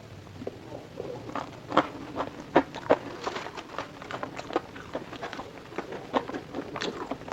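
Close-miked chewing of crunchy fried food, with many irregular crackling crunches.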